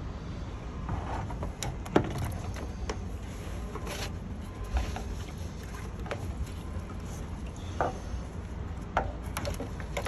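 Scattered clicks and knocks as a round plastic mesh filter basket is handled and seated into a rainwater tank's opening, the sharpest about two seconds in, over a steady low rumble.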